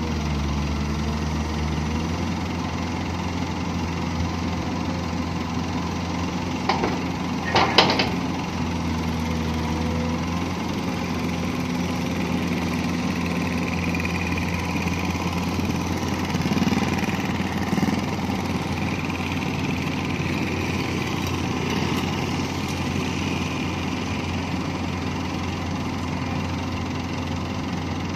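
Komatsu PC200 long-reach excavator's diesel engine running steadily as it digs and swings a bucket of soil toward a dump truck, its note shifting a couple of times under load. A short sharp knock about eight seconds in.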